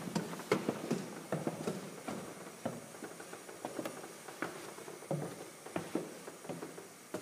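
Footsteps walking at an even pace, about two steps a second, growing fainter toward the end.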